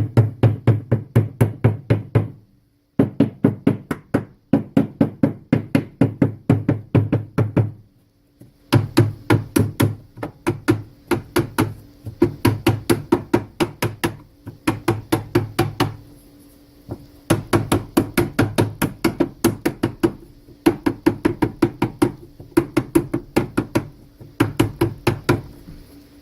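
Rapid knocking on wooden Langstroth frame parts, about five sharp knocks a second in runs of a few seconds with short pauses between.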